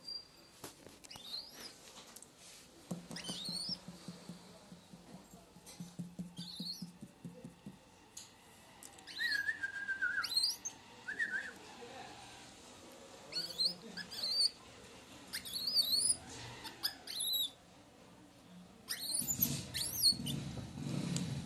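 Infant langur giving repeated short, high-pitched squeaks and chirps in scattered bouts, some falling in pitch. A low hum comes in twice and is loudest near the end.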